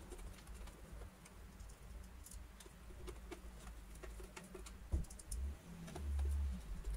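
Small scattered clicks and taps of hard plastic parts and a screwdriver being handled as a cover is fitted and screwed back onto a Dyson DC50 cleaner head, with a couple of low knocks near the end.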